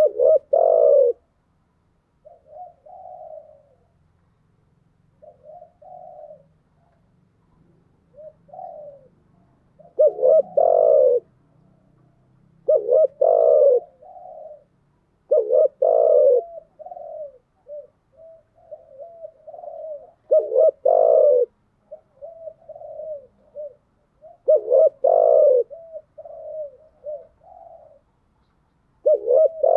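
Spotted dove cooing: loud multi-note coo phrases every few seconds, with softer, shorter coos in between. These are lure calls used to stir up other doves.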